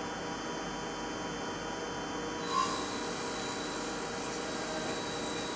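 CNC machine drilling stainless steel with a solid carbide deep-hole drill under spraying coolant: a steady mechanical hum with coolant hiss. About halfway, the hiss brightens and a thin, steady high whine begins.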